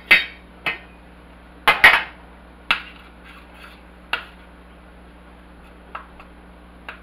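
Kitchen clatter: several sharp knocks and clinks of utensils and cookware, loudest in the first two seconds, then a few fainter taps.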